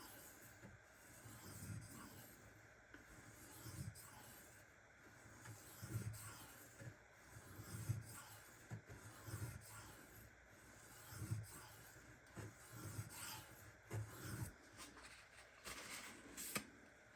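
Knife blade of 154CM steel drawn in slow, even strokes across a Shapton Kuromaku 1500-grit whetstone: a faint scraping rub about every two seconds, with a sharper click near the end.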